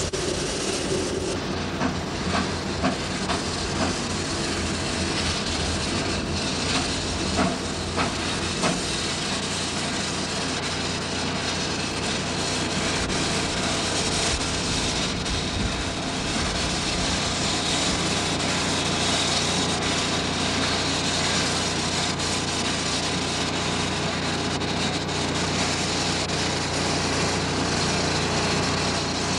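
Steady hiss and machinery noise of a working sugar-mill yard with a narrow-gauge steam locomotive, under a constant low hum. A run of sharp clanks comes in the first nine seconds or so.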